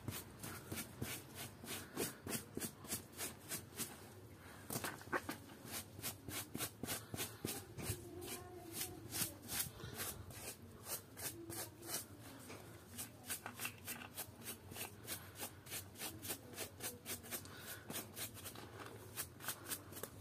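Stiff-bristled hand scrub brush scrubbing a wet, muddy plush toy in soapy water, in quick rhythmic strokes of several a second.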